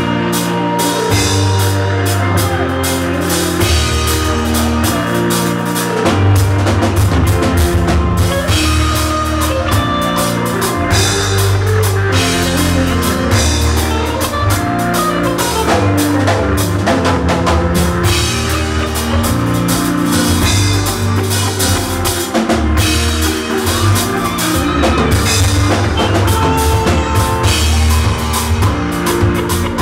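Live band playing loud music: a drum kit keeping a steady beat under a bass line and electric guitar.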